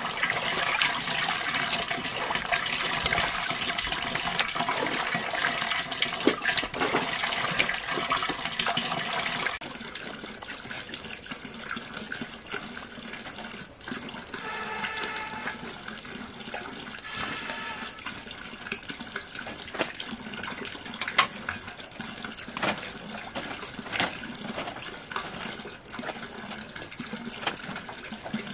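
Water running and splashing steadily, then cutting off abruptly about ten seconds in. After that come quieter scattered clinks and knocks.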